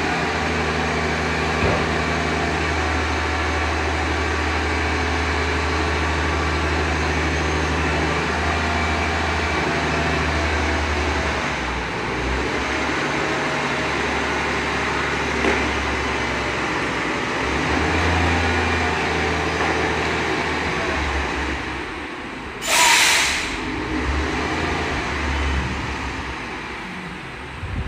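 Diesel engine of a heavily loaded truck running with a low drone that wavers in pitch and strength, then a loud hiss of air brakes lasting about a second, late on.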